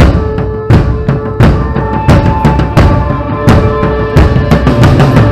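Live rock band playing, with the drum kit loud and close: heavy drum hits on a steady beat, under sustained electric guitar notes.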